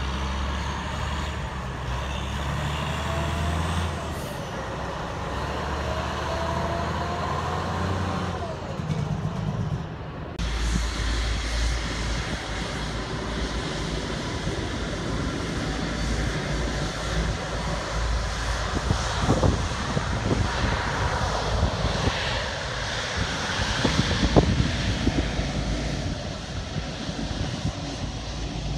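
Engines of emergency vehicles running at idle, with faint tones gliding up and down over them. After an abrupt cut about ten seconds in, comes the steady rush and rumble of a jet airliner's engines on the ground, with two short knocks in the second half.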